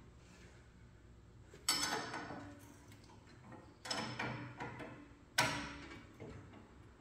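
Three sharp metallic knocks about two seconds apart, each ringing out for about a second before dying away.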